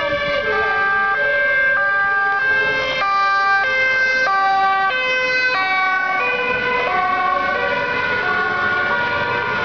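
Emergency-vehicle two-tone sirens alternating high and low, loud and steady, with more than one siren sounding at once out of step, including that of a passing Dutch police van on an urgent call.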